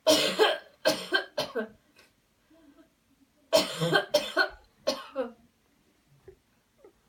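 A person coughing loudly in two bouts of three or four coughs each, about three seconds apart: deliberate coughs done on cue as part of a guided coughing exercise.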